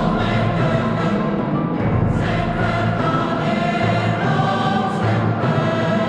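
Background choral music: a choir singing long held chords that change about once a second.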